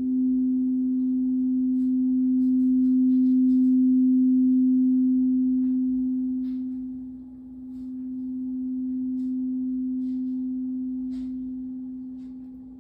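Singing bowl ringing one steady low tone after being struck, swelling and ebbing in loudness and fading near the end, with a few faint light clicks over it.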